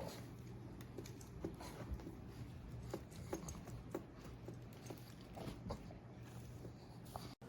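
Keys on a slim aluminum Bluetooth numeric keypad being pressed: quiet, irregular clicks, about two or three a second. The sound cuts out briefly near the end.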